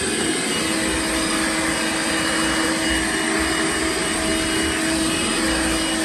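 Cordless handheld vacuum cleaner running steadily with a constant motor whine, its nozzle passing over carpet as it sucks up debris.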